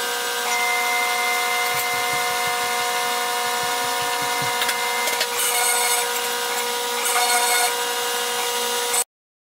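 Small CNC mill's spindle whining steadily while its diamond-cut router bit cuts through a 4 mm carbon fiber plate, a steady high whine over a gritty cutting hiss. The sound cuts off suddenly near the end.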